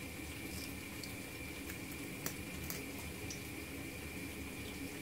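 Kitchen scissors snipping the fins off a raw horse mackerel: a few faint separate clicks, the clearest a little over two seconds in. Under them runs a steady faint room hum with a thin high whine.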